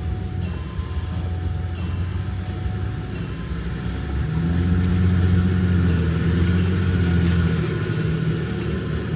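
Jeep Gladiator Rubicon running with a steady low rumble, getting louder about four seconds in.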